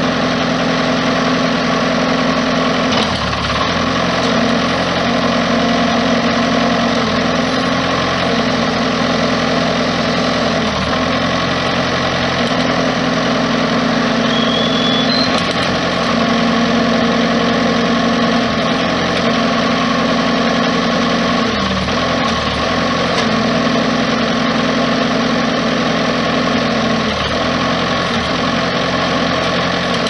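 Bobcat T190 compact track loader's diesel engine running steadily. Its note sags briefly about five times as the lift arms are raised and lowered, loading the hydraulics.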